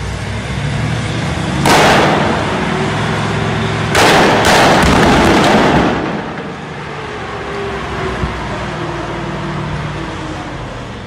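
Stunt pyrotechnic explosions set off in a street. A sudden blast comes about two seconds in, then a second, longer blast with several sharp cracks about four seconds in lasts around two seconds before dying away.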